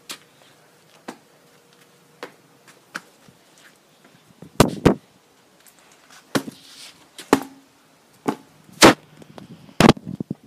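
Irregular sharp knocks and thumps, about a dozen, with a loud double knock about halfway through and loud single knocks near the end; faint rustling between them.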